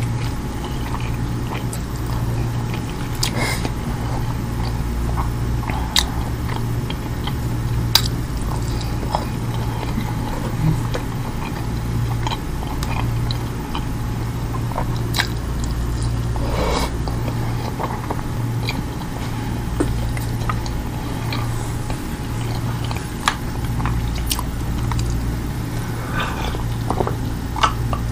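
Close-miked chewing and mouth sounds of someone eating haneeth meat and kabsa rice by hand, with sharp clicks every few seconds over a steady low hum.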